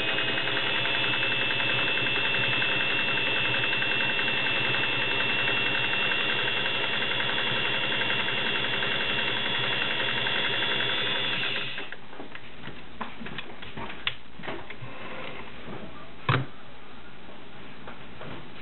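Singer 401A Slant-O-Matic sewing machine running at a steady speed with a high whine, sewing a cam-driven decorative stitch; it stops about twelve seconds in. After it stops come a few small clicks and one sharp knock.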